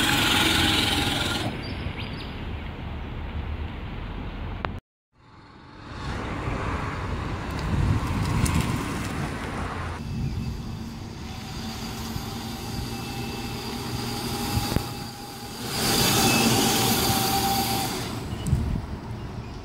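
Small vehicles driven by Di Pietro compressed-air rotary motors moving across a driveway, their sound rising and falling in several passes. The sound cuts out abruptly for about a second about five seconds in.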